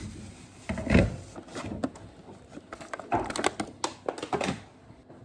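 Kitchen clatter while assembling a sandwich: a loud thump about a second in, then a quick run of clicks and knocks.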